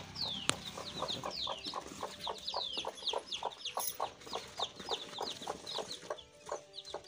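Newly hatched chicks peeping in a stream of quick, high, falling cheeps while the broody hen clucks rapidly and steadily over them. A single sharp knock sounds about half a second in.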